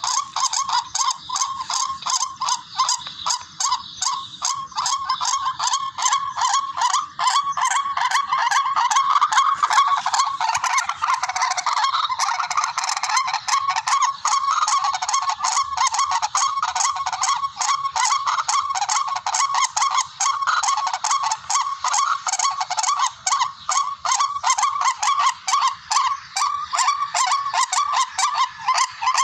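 Rail (tikling) calls used as a hunting lure: a fast, continuous run of harsh, repeated notes at a fairly steady pitch.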